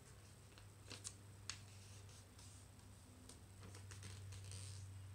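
Faint crinkling and rustling of a square of origami paper being folded and creased by hand: a few soft crackles about a second in and a longer rustle near the end, over a low steady hum.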